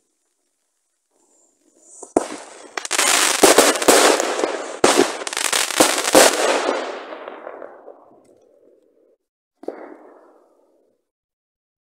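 Fireworks going off: starting about two seconds in, a rapid string of bangs and dense crackling from aerial bursts, loudest over the next few seconds and then fading away. A short, fainter crackle follows near the end.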